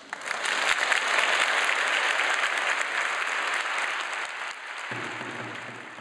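Audience applauding, many hands clapping together; it starts suddenly and slowly fades out.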